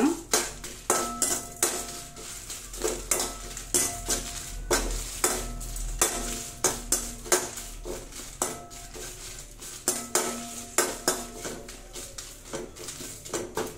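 A steel spoon stirring whole dried red chillies in a thin aluminium kadai, knocking and scraping against the pan about twice a second with a short metallic ring after each knock. Under it, a faint sizzle of the chillies frying in a little oil.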